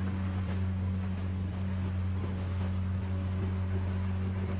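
Small boat's outboard motor running steadily at low speed, a constant low hum, with wind on the microphone and water rushing along the hull.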